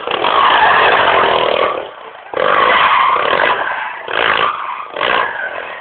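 Sport quad bike's engine revving hard in surges. Long bursts of throttle fill the first two seconds and again around three seconds, then shorter blips follow near the end.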